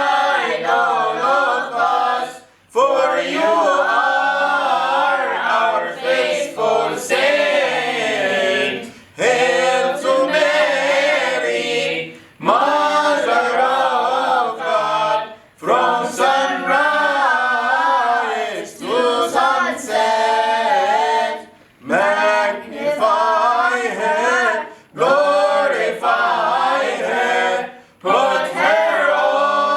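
A priest with a mixed group of children and adults singing a Coptic Orthodox hymn unaccompanied, in sung phrases of about three seconds each with short pauses between them.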